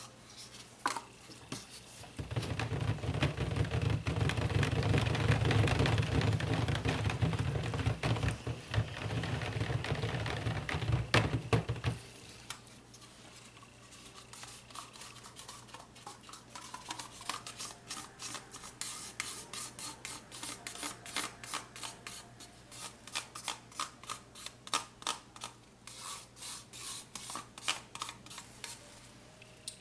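Immersion stick blender running in a tub of purple soap batter for about ten seconds, mixing in mica colour, then switched off about twelve seconds in. After that the blender head is worked by hand through the batter, with many light clicks and knocks against the plastic tub.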